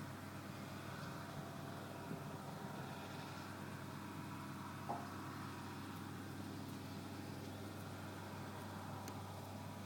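New Holland Clayson 8055 combine harvester running with a steady low engine drone, and a brief faint tone about halfway through.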